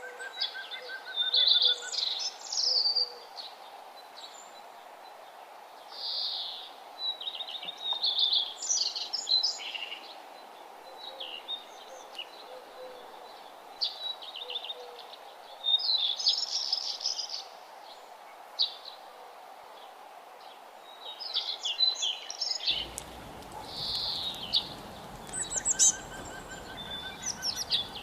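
Songbirds singing short, repeated chirping phrases every few seconds over a steady background hiss. A low background rumble comes in abruptly about 23 seconds in.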